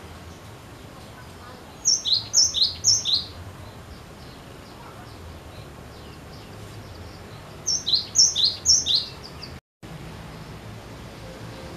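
Cinereous tit singing two bouts of its two-note song, a high note dropping to a lower one, repeated three or four times per bout, about two seconds in and again about eight seconds in. The sound cuts out briefly near the end.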